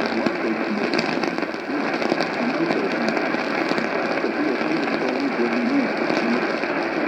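AM radio reception: a steady hiss of static with frequent crackles, and a voice faintly audible underneath.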